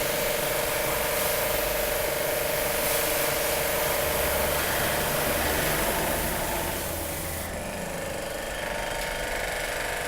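A motor running steadily under a broad hiss, as of cleaning equipment spraying. Its hum stops about four and a half seconds in, and the high hiss thins a few seconds before the end.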